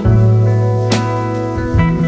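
Instrumental background music with guitar, bass and a steady drum beat.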